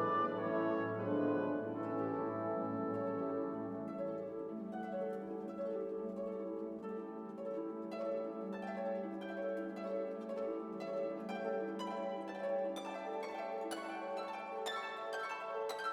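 Orchestral background music: sustained string chords under plucked notes that grow busier toward the end.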